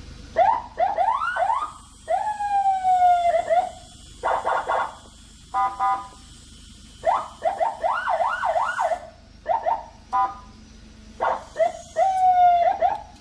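Senken CJB100BD electronic siren sounding through a Senken YD100i speaker, cycling through several tones in short bursts: quick rising sweeps repeated several times, a slow falling tone, a steady horn-like blast and short beeps.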